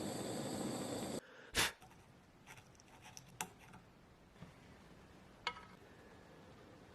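A loud hiss that cuts off suddenly about a second in, then a sharp click and a handful of lighter clicks and taps.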